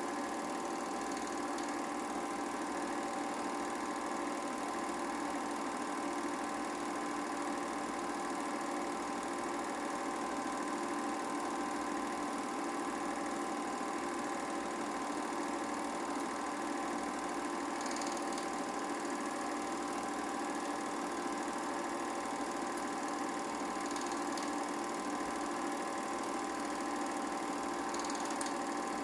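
8mm film projector running: a steady mechanical whirr with a constant hum, and a few faint ticks in the second half.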